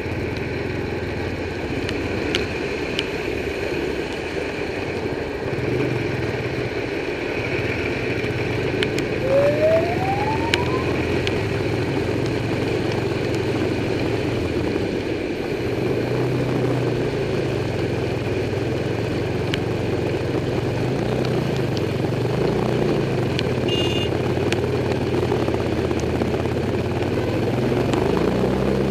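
Motorcycle engine running on the move, its pitch rising and falling with the throttle, over a steady rushing noise of wind and road.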